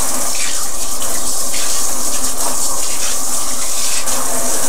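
Water running steadily from a sink tap while hands are washed under it.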